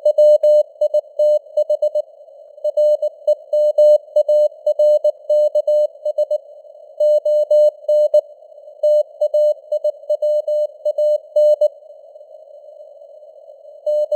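Morse code sent as a single keyed tone at 19 words per minute, in short and long beeps (dits and dahs) over a narrow band of simulated radio static. The signal strength drifts slightly as it fades (QSB). It pauses briefly twice between groups and goes quiet for about two seconds near the end.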